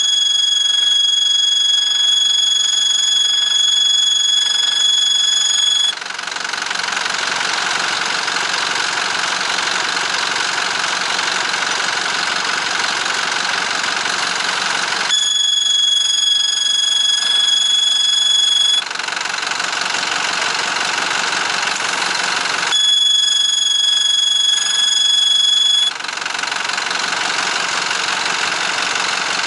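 Engine running with a steady high-pitched whistle that comes in three times: a long spell at the start, then two shorter ones about 15 and 23 seconds in. This is the abnormal noise heard when the exhaust brake is applied.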